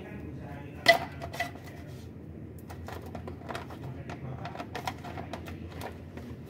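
Metal parts clinking and clicking as they are handled under the engine, with one sharp ringing metal clink about a second in and scattered lighter clicks after it, over a low steady hum.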